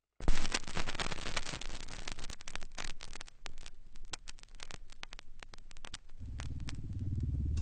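Irregular crunching and crackling clicks, thick at first and thinning out. About six seconds in, a low, deep sound comes in underneath.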